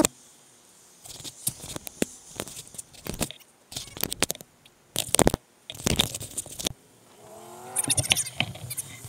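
Noise of a bicycle ride on the camera microphone: wind and bumps buffeting it in irregular bursts and knocks, with a short wavering pitched sound about eight seconds in.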